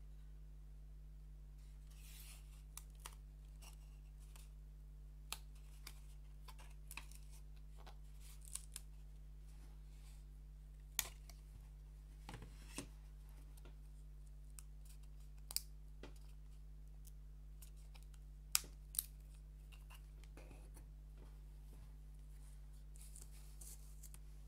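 Small thin wooden puzzle pieces being handled and fitted together: a dozen or so sharp clicks and snaps of wood at irregular intervals, with a couple of brief soft rustles.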